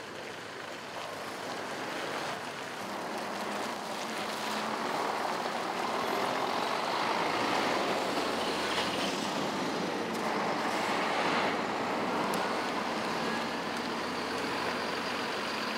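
Steady road-vehicle noise that grows louder over the first several seconds and then holds.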